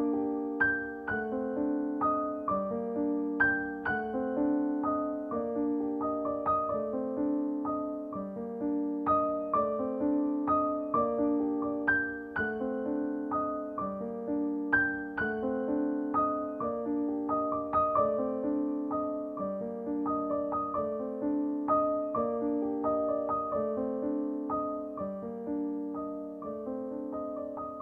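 Background music: a gentle piano melody played over repeating chords.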